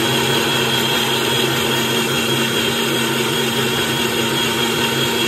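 Electric kitchen mixer grinder running steadily, grinding tomatoes and onions into chutney.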